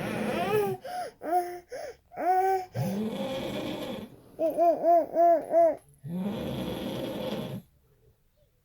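A baby fussing in short rising-and-falling cries, with a quick run of five near the middle; these are the loudest sound. Between them a man snores, one long noisy breath about every three seconds.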